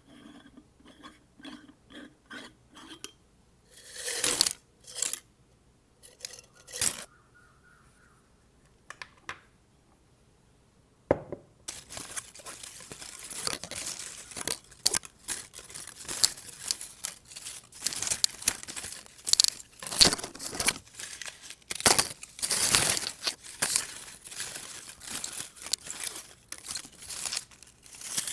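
Light fingertip taps on a bottle, each with a short ringing tone, followed by a few louder swishes. From about eleven seconds in, strips of paper are rustled and crinkled continuously, with many sharp crackles.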